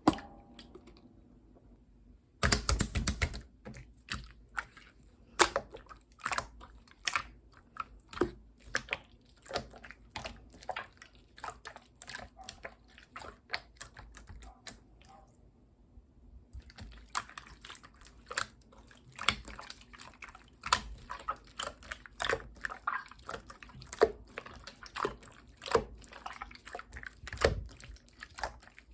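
Pearl slime being pressed and squished by hand, giving a fast, irregular run of small clicks and pops, with a brief pause about halfway through.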